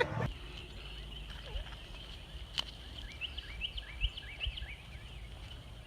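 Faint outdoor background: a steady high thin drone with a quick run of small rising bird chirps in the middle, over a low rumble.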